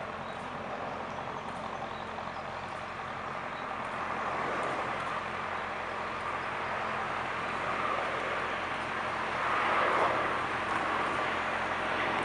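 Dash 8 turboprop airliner on landing approach, the drone of its engines and propellers growing louder as it comes closer, loudest about ten seconds in.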